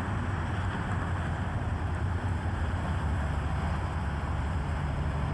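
Wheel dozer's diesel engine running steadily, a deep even rumble with no change in pitch.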